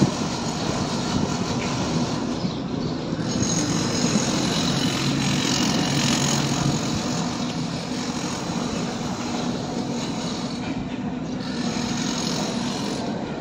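Steady engine and machinery noise: a constant low hum under a continuous rush, with no breaks.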